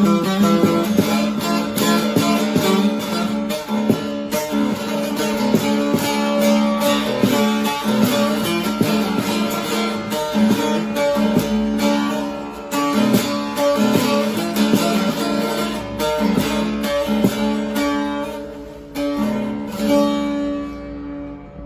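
A divan bağlama with a mulberry body and spruce top is being played: a quick picked melody over a ringing drone. It dies away near the end.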